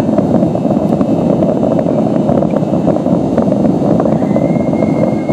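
Distant fireworks finale: many shell bursts merging into a loud continuous rumble with small crackles. A high steady whistle joins about four seconds in.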